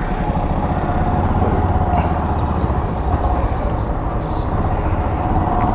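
Honda Monkey 125's air-cooled single-cylinder engine running steadily as the bike pulls away at low speed.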